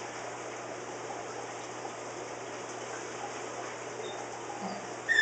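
A steady, faint water-like hiss, then a short high squeak near the end, like a cloth rubbed dry on aquarium glass.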